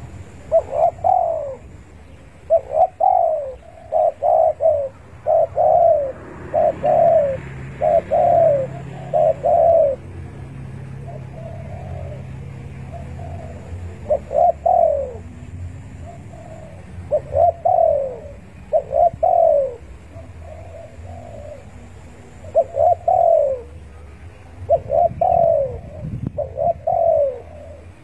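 Spotted dove (tekukur) cooing: short, slightly falling coos in repeated phrases of two or three notes with pauses between. It is the male's call to rivals.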